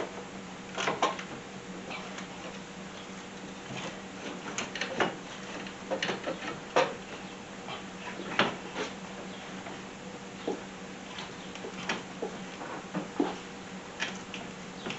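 Irregular metal knocks and clicks as an alternator is worked loose and pulled out of a car's engine bay, about a dozen scattered over the stretch, over a steady low hum.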